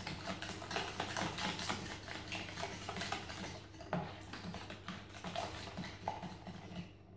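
Plastic spoon stirring egg, milk and sugar in a plastic measuring jug, making rapid, irregular clicking and tapping against the jug's sides; the stirring stops just before the end.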